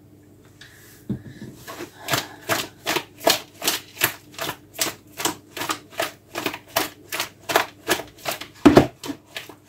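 Whole raw capelin being tossed in a plastic bowl by hand to coat them in salt, pepper and lemon juice: a rhythmic slapping rattle of fish against the bowl, about two and a half strokes a second, starting about a second in, with one heavier stroke near the end.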